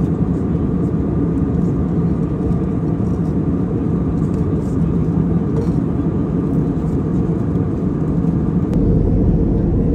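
Steady cabin noise of a jet airliner at cruising altitude: a low, even rumble and rush of engine and airflow noise. The low rumble grows a little louder near the end.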